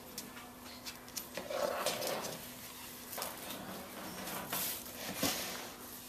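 African grey parrot making short rough, harsh noises, the angry sounds of a hen guarding her nest site, mixed with light taps and scuffs on the floor.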